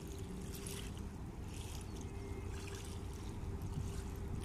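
River water lapping at the bank in repeated small washes, about one a second, over a steady low rumble and a faint steady hum.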